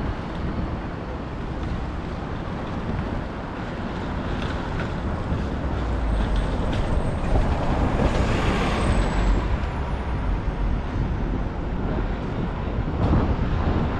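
City street traffic, rising to a louder, deeper rumble from about six to ten seconds in as a vehicle passes, then easing off.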